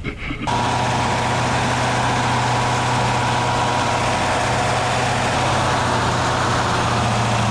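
A heavy engine running steadily at constant speed, starting abruptly about half a second in.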